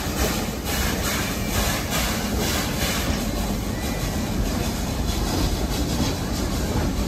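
Steam locomotive pulling a train of open passenger cars away, its exhaust chuffing about twice a second and fading after a few seconds, over the steady rumble and rattle of the cars on the track.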